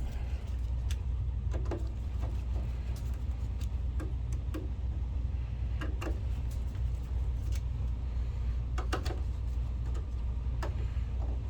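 Small, irregular clicks and taps of screws and small metal parts being handled and fitted into a projector's housing, over a steady low hum.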